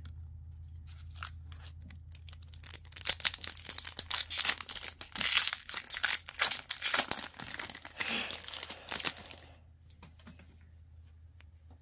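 Foil trading-card pack wrapper being torn open and crinkled: scattered crackles at first, then a dense run of tearing and crinkling from about three seconds in that stops a couple of seconds before the end.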